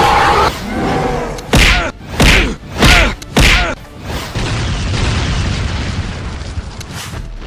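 Four heavy booming hits in quick succession, about two-thirds of a second apart: cartoon fight impact sound effects. A steady rumbling noise bed follows.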